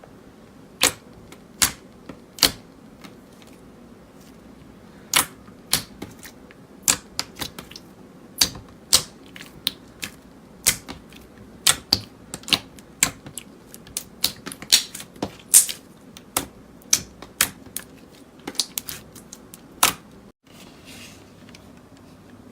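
Slime being pressed and folded by hand, giving sharp, irregular clicks and pops, a few each second, which stop near the end.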